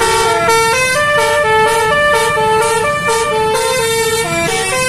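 Indonesian bus 'telolet' musical air horn playing a quick tune of stepped notes, about four a second, over a low rumble.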